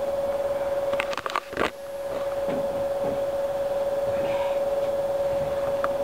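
A steady, even hum at one pitch, broken about a second in by a few sharp clicks and a brief dip.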